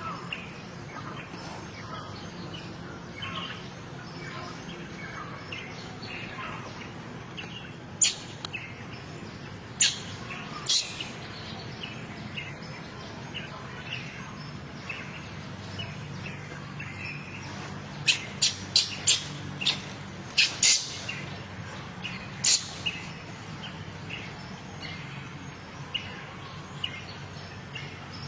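Short, sharp, high-pitched chirps, scattered at first and then a quick run of several about two-thirds of the way through, over a steady low background hum.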